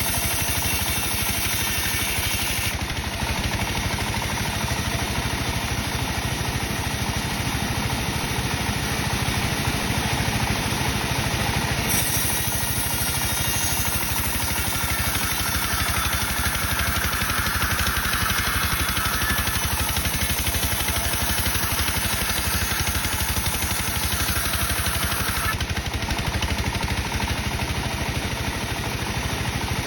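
Sawmill saw rig and its engine running steadily while cutting dry teak, with the pitch of the cutting shifting a few times.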